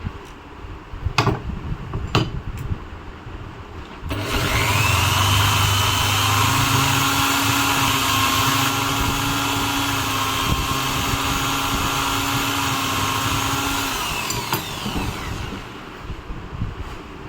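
Electric drill motor starting with a rising whine, running steadily for about ten seconds, then winding down as it is switched off. Two sharp clicks come before it starts.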